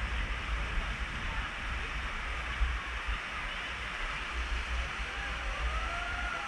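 Steady hiss of water running down an open fibreglass water slide, with wind rumbling on the microphone.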